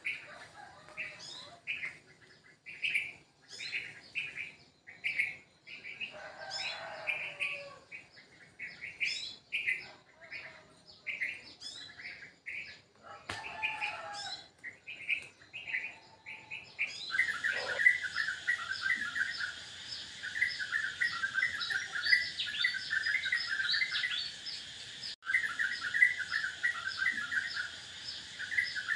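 Birds chirping: a short chirp repeated about once a second, then, a little past halfway, a sudden busier and continuous chorus of rapid chirps from several birds.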